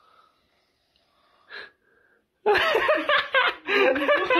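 A few quiet seconds, then people break into wheezy, stifled laughter about halfway in.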